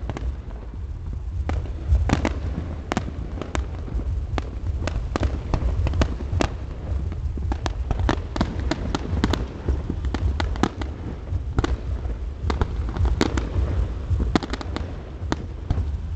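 Aerial fireworks going off in quick succession: many sharp bangs and cracks, several a second, over a continuous low rumble.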